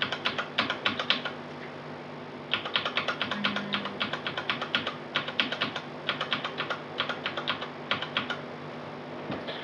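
A computer keyboard key tapped rapidly and repeatedly, about five taps a second, in a short run, then a longer run after a pause of about a second, stopping shortly before the end: the usual way of getting into the BIOS setup while the PC boots.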